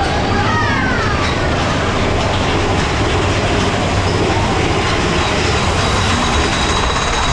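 Big Thunder Mountain Railroad mine-train roller coaster running fast along its track, a loud, steady rumble and rattle of the cars heard from on board. A few brief high gliding squeals come near the start.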